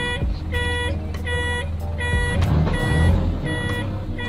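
Flatbed tow truck reversing: its back-up alarm beeps about three times every two seconds over the truck's engine running, the engine growing louder around three seconds in.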